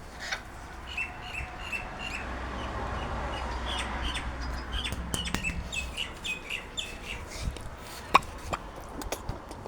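Small birds chirping in a rapid run of short, repeated chirps, over a low rumble, with a single sharp click near the end.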